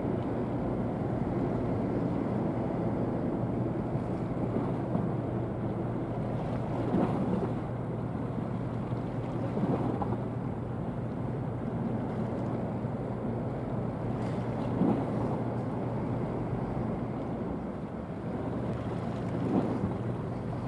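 Steady low drone of a passing ship's engines, with wind noise on the microphone and a few brief louder puffs.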